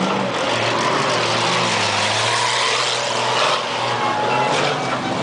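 Engines of several cars running as they race around a dirt track, a steady mechanical hum under a wash of noise.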